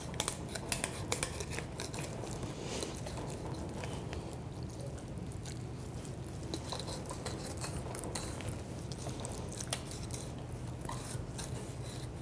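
Flexible fillet knife cutting along a salmon's backbone, crunching through the pin bones and spine in quick crackling clicks, most of them in the first few seconds and scattered after.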